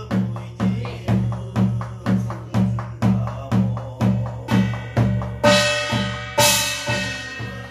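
Korean shaman's barrel drum (buk) beaten with a stick in a steady beat of about two strokes a second, keeping time for a gosa blessing chant. About five and a half and six and a half seconds in come two brighter, ringing strikes.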